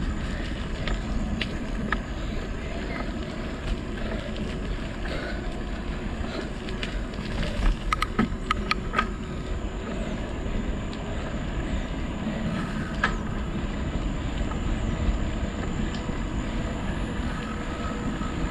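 Motor vehicle under way: steady engine, tyre and wind noise, with a short run of sharp knocks or rattles about eight seconds in.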